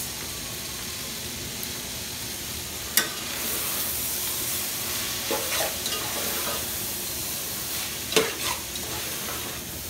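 Vegetable and snail stir-fry sizzling steadily in a large aluminium pot as a metal spoon stirs it. There is a sharp clink about three seconds in, and short scrapes of the spoon against the pot a little after five seconds and again around eight seconds.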